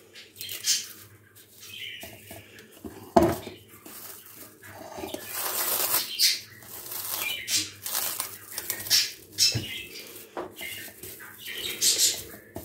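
Plastic cling film crinkling and rustling in irregular bursts as hands fold it over and smooth it down on a cake mould, with a sharp knock about three seconds in.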